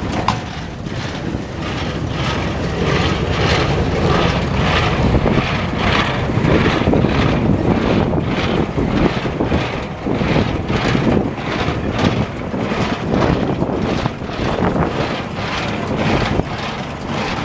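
IHC 440 square baler running off a tractor's PTO, its mechanism knocking in a steady rhythm of about one and a half strokes a second over the tractor engine's steady drone.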